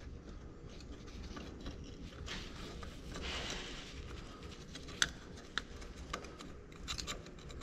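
Faint metal scraping and rubbing as a hydraulic cylinder's end is worked onto a tight-fitting cross tube, followed by a few sharp metal clicks.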